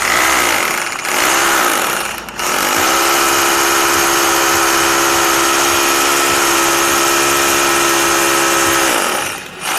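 Rotary hammer drill with an 8 mm rotary bit running in hammer mode, boring an anchor hole into a tiled wall. It starts, pauses briefly twice in the first few seconds, then runs steadily at an even pitch and stops about nine seconds in.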